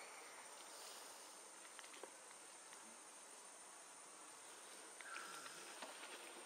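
Near silence: faint outdoor ambience with a steady hiss and a few soft clicks, and a brief faint chirp about five seconds in.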